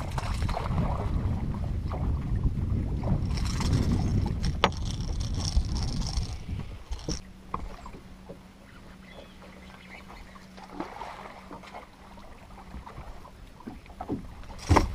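Wind rumbling on the microphone at the bow of a bass boat for about the first seven seconds. After that it drops and a low steady hum holds for several seconds, with a few sharp knocks near the end.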